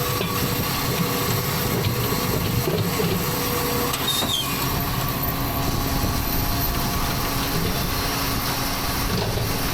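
A vehicle engine running steadily, a continuous mechanical drone with no change in speed.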